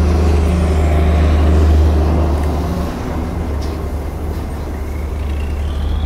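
Road traffic passing close by, with a deep engine rumble that is loudest in the first two seconds and eases off about three seconds in.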